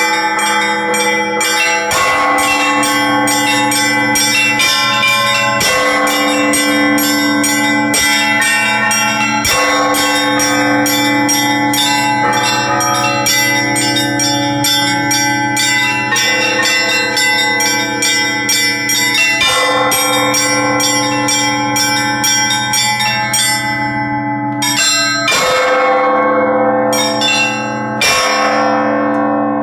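Russian Orthodox church bells rung by hand by a bell-ringer. The small bells ring in a fast, continuous pattern over the ringing tones of the larger bells, and the heavy bells are struck every three or four seconds.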